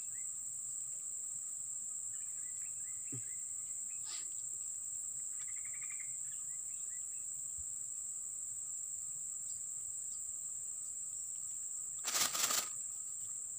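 Steady high-pitched drone of insects, crickets or cicadas, with a few faint short chirps in the first half and a brief burst of noise about a second before the end.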